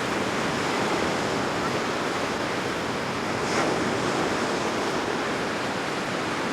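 Steady wash of ocean surf with wind blowing.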